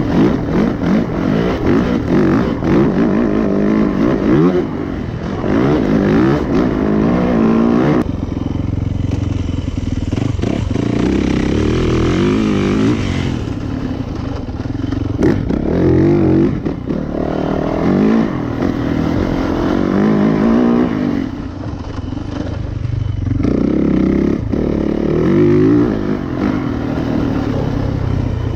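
2019 Yamaha YZ450FX's single-cylinder four-stroke engine being ridden hard, its pitch rising and falling over and over as the throttle is opened and rolled off. The sound changes abruptly about eight seconds in.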